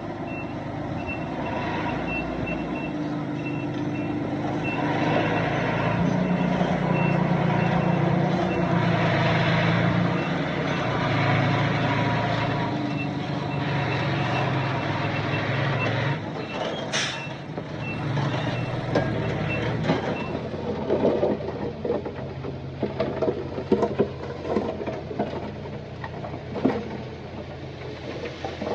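A dump truck's reversing alarm beeps steadily over its running diesel engine for about twenty seconds. A short sharp hiss comes about seventeen seconds in, and after the beeping stops, stones clatter and knock irregularly.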